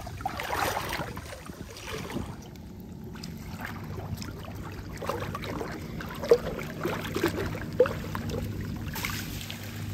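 Shallow seawater sloshing and dripping as a net fish trap is handled and lifted out of the water, with small splashes and a couple of sharper drips about six to eight seconds in, over a low steady hum.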